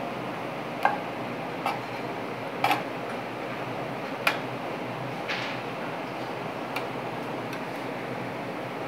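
Metal spoon clinking and scraping against a metal roasting pan while basting fish with sauce: a handful of short, sharp clicks at irregular intervals over a steady background hiss.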